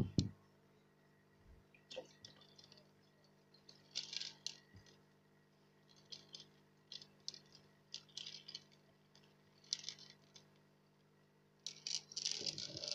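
Water being poured from a container into a fish tank, splashing and trickling onto the surface in short, irregular bursts. A sharp knock comes right at the start.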